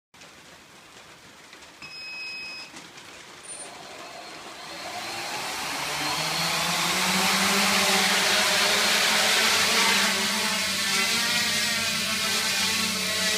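Quadcopter's brushless motors and 9-inch propellers spinning up: a hum that rises in pitch and loudness over a few seconds, then holds steady as the quad lifts off and hovers. A single short beep sounds about two seconds in, before the motors start.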